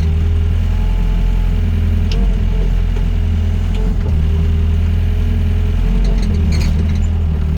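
Doosan DX55 mini excavator's diesel engine running steadily, with a fainter tone above it wavering up and down as the machine works.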